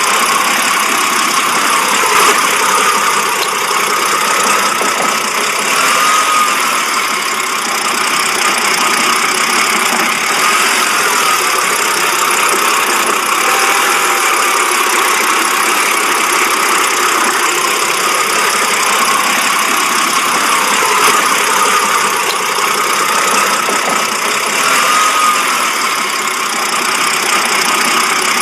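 BMW engine idling roughly, its running steady overall but with slight rises and falls in loudness: the rough-idle fault.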